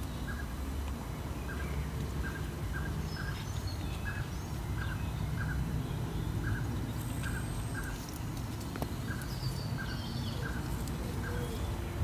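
A bird calling with short repeated notes, roughly two a second and often in pairs, with a few fainter, higher chirps from other birds, over a steady low background rumble.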